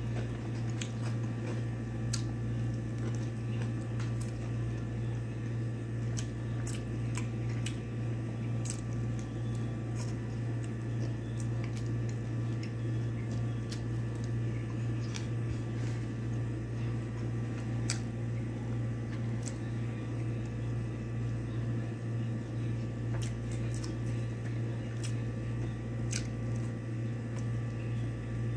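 Eating by hand: chewing and small mouth clicks, with fingers working cooked rice on a plate. A steady low hum runs underneath.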